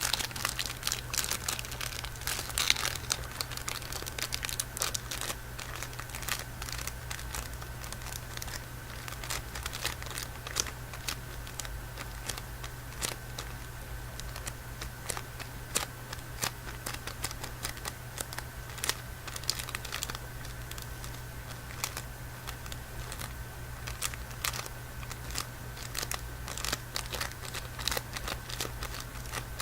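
Packaging of a chocolate bar crinkling and crackling in irregular bursts as it is handled and unwrapped, over a steady low hum and a faint high whine.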